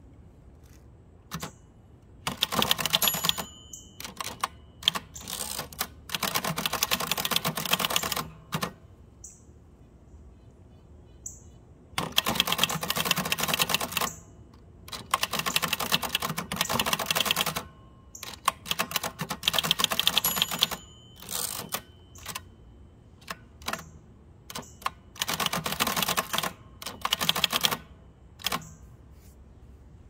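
1949 Adler Favorit 2 thrust-action portable typewriter being typed on: quick runs of key strikes, each lasting a second or two, with short pauses between them.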